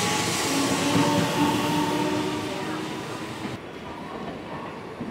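Electric commuter train running past the platform: a loud rushing of wheels on rail, with a few steady tones over it. About three and a half seconds in, the sound drops to a quieter, duller platform background.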